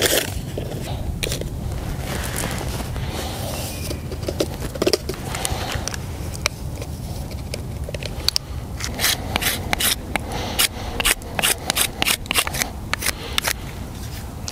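Camp gear being handled by hand: a zippered pouch opened, then from about nine seconds in a quick run of clicks and scrapes at a stainless steel mug as coffee is mixed in it, over a steady low rumble.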